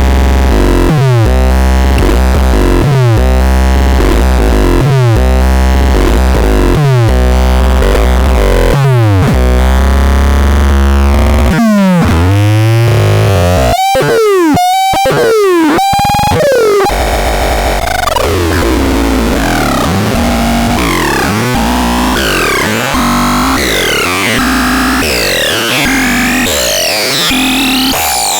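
Synthesizer sounds: for the first eleven seconds a deep bass tone that sweeps downward in pitch about once a second, then a few seconds of choppy, stop-start sweeps, then higher tones gliding up and down in a quick zigzag.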